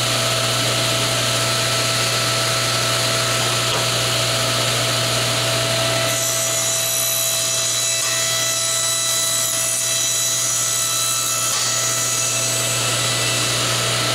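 Table saw running steadily. From about six seconds in, the blade cuts through a small hardwood block for several seconds, adding a high hiss over the motor's hum, then the saw runs on freely.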